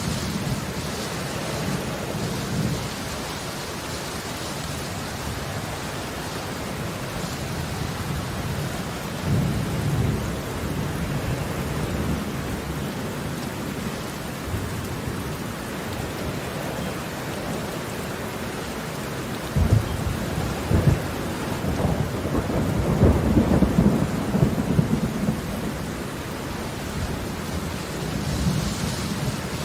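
Thunderstorm: steady rain with rolling thunder, including a sharp clap about twenty seconds in followed by a longer rumble.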